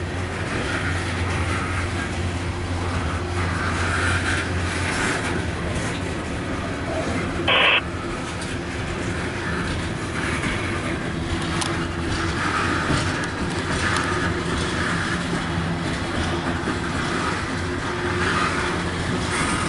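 Loaded coal hopper cars rolling past close by: a steady rumble of steel wheels on rail that swells and fades every couple of seconds as the cars go by. One short, sharp, louder sound stands out about seven and a half seconds in.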